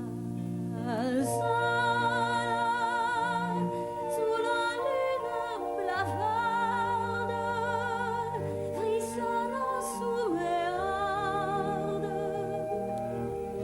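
Musical-theatre song: a voice sings long held notes with vibrato over sustained orchestral accompaniment.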